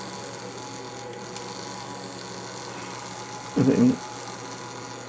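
Steady electric hum with a thin high whine from the small fischertechnik DC motors and their PWM driver circuit running. A short muttered vocal sound about three and a half seconds in.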